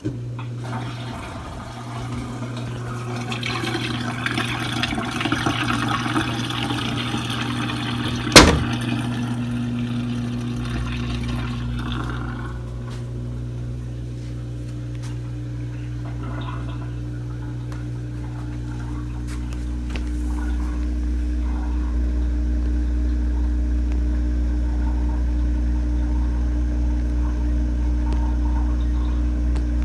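Samsung DW80R5060US dishwasher's drain pump running in its diagnostic drain test, with water rushing out through the drain. There is a sharp click about eight seconds in. A few seconds later the water sound dies away and a steady low motor hum carries on.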